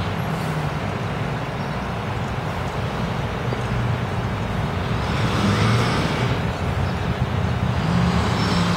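Motorcade vehicles driving past slowly one after another: engines running and tyres on the road, growing louder about five seconds in as an ambulance passes close.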